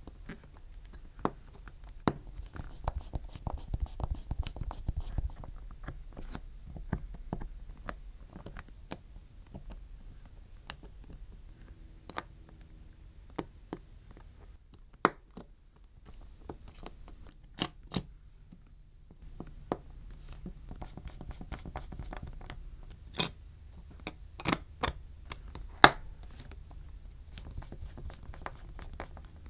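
Small parts of a Samsung Galaxy S23 and hand tools being handled on a work mat: scattered sharp clicks and taps with light scraping, and a few louder clicks in the second half.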